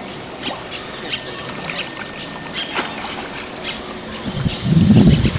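Small waves lapping in shallow bay water, with scattered light splashes. A loud, low rumbling burst on the microphone arrives near the end.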